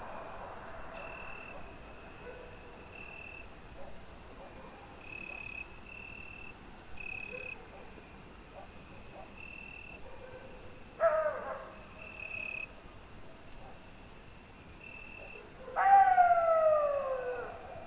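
Canine howling: a short howl about eleven seconds in, then a long howl sliding down in pitch near the end. Short high peeps repeat irregularly underneath.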